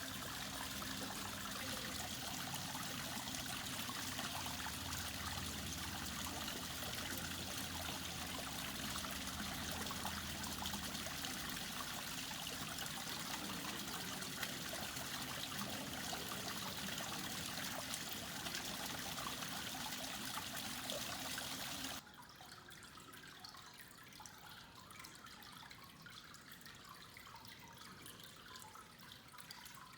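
Fountain water falling and splashing in a steady, even rush. About two-thirds of the way through it cuts abruptly to a much quieter trickle and drip of water from another water feature.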